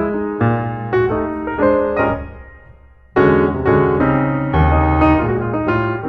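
Background piano music: struck chords and notes ringing out. About three seconds in, a chord dies away almost to nothing before a loud new chord comes in.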